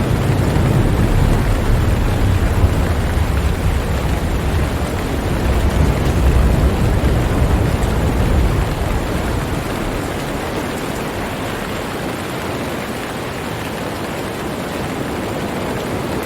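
Steady rain hiss with a low rumble of thunder that dies away about ten seconds in.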